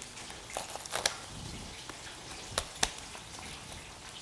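Faint kitchen handling sounds from a plastic ice cube tray and a glass bowl of iced drink: a few sharp light clicks and clinks, a cluster about a second in and two more close together near the three-second mark.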